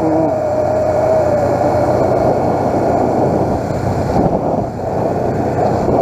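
Motorcycle engine running steadily while riding, with wind and road noise on the bike-mounted camera's microphone.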